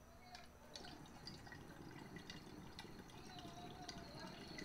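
Water inside a glass dual-recycler dab rig bubbling faintly as air is drawn slowly through it, a loose run of small drips and pops.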